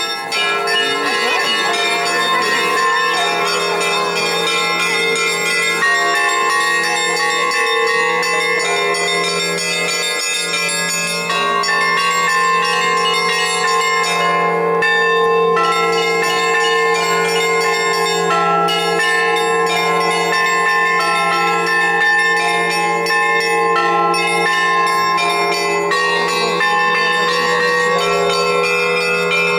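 Russian Orthodox church bells ringing a festive peal: several bells of different pitches sounding together over a steady low hum.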